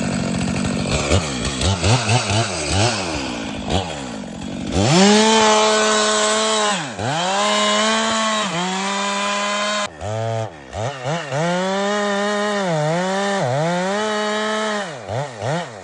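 Chainsaw revved in quick throttle blips, then held at full throttle while cutting into a tree trunk, its pitch dipping several times as the chain bogs in the wood. It drops back near the end.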